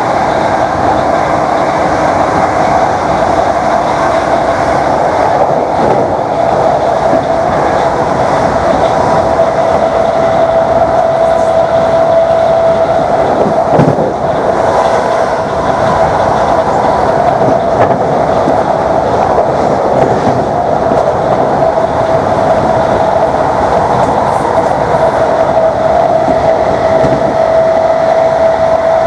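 Class 321 electric multiple unit running, its DC traction motors whining steadily at one pitch over loud thrash and rattle from the running gear. A single knock comes about halfway through.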